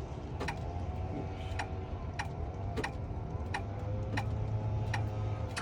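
Evenly spaced ticking, about nine ticks roughly two-thirds of a second apart, typical of a vehicle's turn-signal flasher, over a steady low hum.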